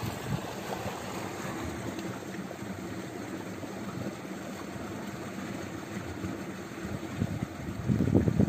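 Steady outdoor noise with a faint low engine hum. Heavier wind buffeting on the microphone starts near the end.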